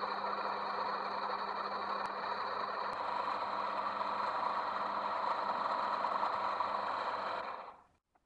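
Mini metal lathe running at a steady speed, a motor-and-gear hum, then switched off near the end and running down within about half a second.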